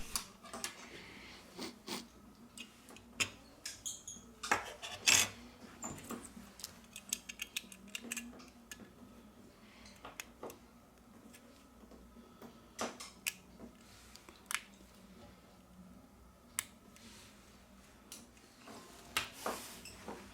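Scattered small clicks and taps of phone parts and hand tools being handled during the reassembly of a Samsung Galaxy A30s smartphone. The sharpest clicks come in a cluster about five seconds in and again near the end, over a faint steady hum.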